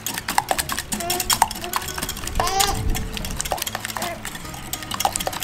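Wire balloon whisk beating eggs in a glass measuring jug: a rapid run of clicks as the wires strike the glass.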